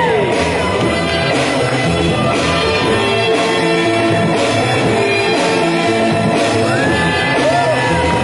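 Loud music with a steady beat and held notes.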